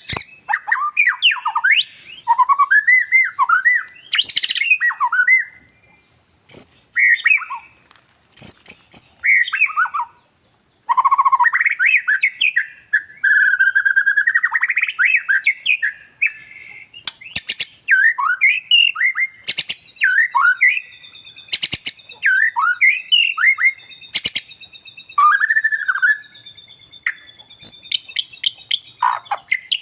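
Oriental magpie-robin (kacer) singing in full, varied song: quick runs of whistled and chattering notes sliding up and down, broken by short pauses, with a few sharp clicks in the second half.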